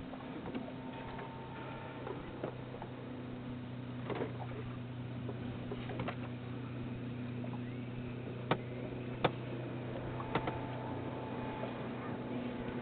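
Scattered knocks and clunks of gear being handled in a small boat, three sharper ones after the middle, over a steady low hum.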